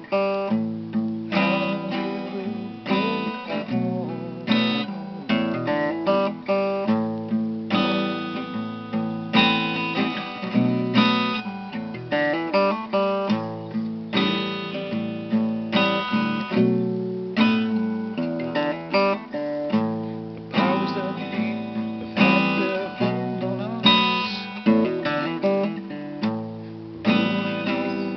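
Acoustic guitar played without voice, chords struck in a steady rhythm and each left to ring.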